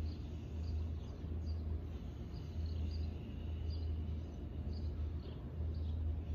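Backyard ambience: a steady low hum under a short, high chirp that repeats about once every three quarters of a second.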